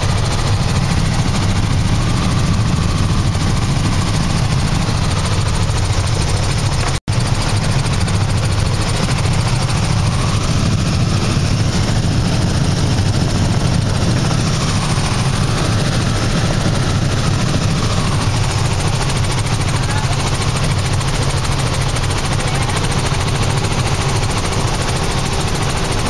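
Steady rotor and engine noise of a small helicopter in flight, heard from inside the cabin, heaviest in the low end. The sound drops out briefly about seven seconds in.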